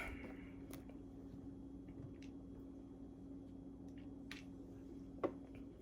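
Quiet room with a steady low hum and a few faint clicks, one sharper click about five seconds in.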